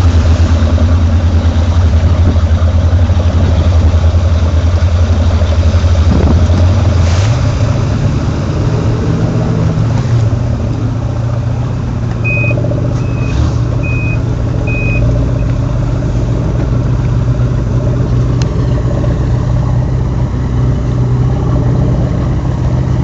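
Cigarette powerboat's engine running hard under way, then throttled back about seven seconds in to a quieter, steadier, slightly higher note as the boat comes off the plane, with rushing water and wind. About halfway through there are four short, high electronic beeps.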